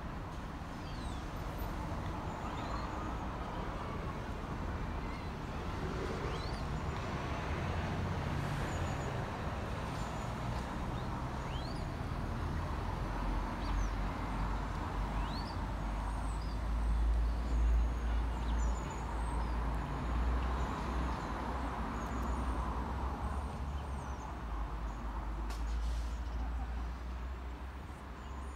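Low steady rumble of a Class 172 diesel multiple unit's engines running at the station, with birds chirping over it.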